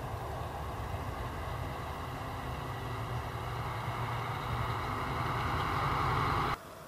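Rumble of a passing vehicle, growing louder, then cut off suddenly near the end.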